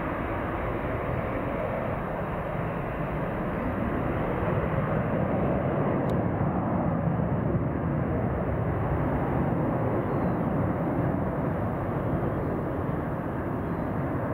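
Boeing 737-800's twin CFM56-7B turbofans at takeoff power as the jet lifts off and climbs away. A steady jet rumble that grows a little louder a few seconds in.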